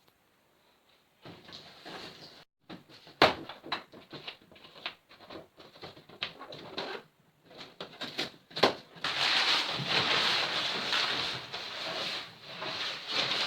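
Cardboard shipping box being opened by hand: a run of sharp knocks and clicks on the box, then continuous rustling from about nine seconds in.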